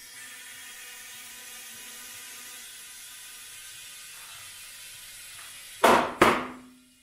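Compressed air hissing steadily through an inflator chuck into a freshly mounted kei-car tyre, then two loud pops about half a second apart near the end as the tyre beads seat onto the rim.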